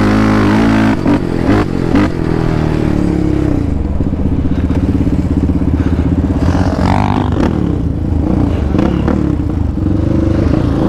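Yamaha Raptor 700R quad's single-cylinder four-stroke engine running under throttle while ridden over sand: the revs jump and dip through gear changes in the first couple of seconds, then hold a steady pull.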